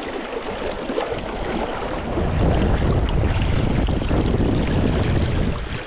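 Fast-flowing river water rushing over shallow riffles, with wind buffeting the microphone as a low rumble that grows louder from about two seconds in.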